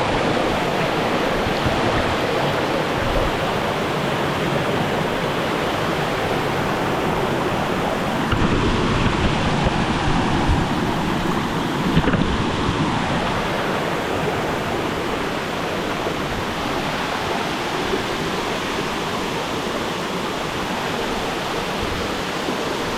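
Waterfall water rushing, a steady dense noise without a break.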